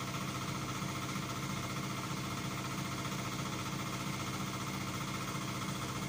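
3 kV engine-driven generator, its engine taken from an old hand tractor, running at a constant speed with a steady low drone.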